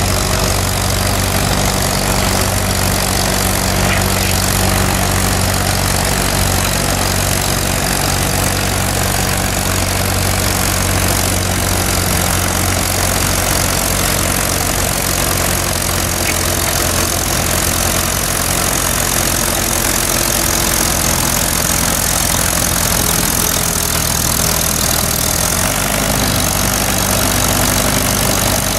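McCormick Farmall tractor's four-cylinder engine running steadily under load as it pulls a weighted sled, its note shifting slightly near the end.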